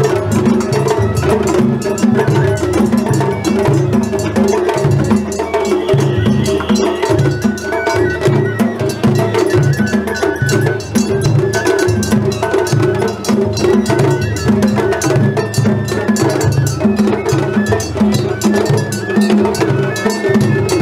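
Japanese festival hayashi from the floats: a steady, repeating pattern of taiko drum beats, quick bright strikes on a small metal gong, and a bamboo flute melody over the top.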